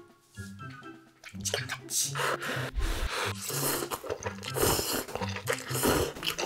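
Instant cup-ramen noodles being slurped and chewed, in several noisy slurps from about a second and a half in, over background music.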